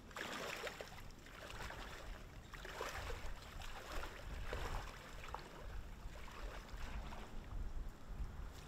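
A person in waders wading through shallow creek water, the water swishing and splashing around the legs in a surge with each stride, about once a second.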